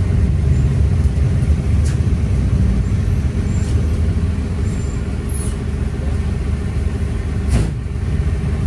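Cabin noise inside a moving marshrutka minibus: a steady low rumble of engine and road with a faint steady hum, and two short rattling clicks, about two seconds in and near the end.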